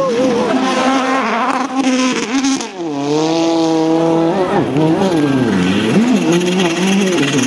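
World Rally Car's turbocharged four-cylinder engine at full effort on a stage, the pitch climbing and dropping again and again with gear changes and lifts, and a steady held note about three seconds in.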